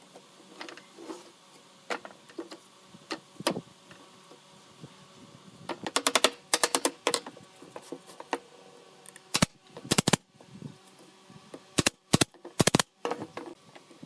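Sharp knocks and taps from woodworking. About six seconds in there is a quick rattling run of clicks, and near the end come several loud single blows.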